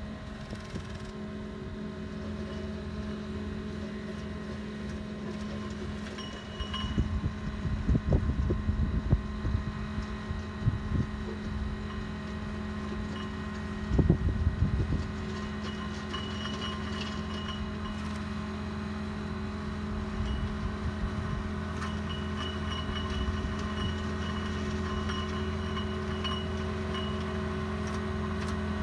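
Caterpillar compact track loader's diesel engine running steadily as the machine tracks forward grading soil with a front blade, growing a little louder as it comes nearer. There are gusts of low rumble around seven and fourteen seconds in, and a faint high whine through the second half.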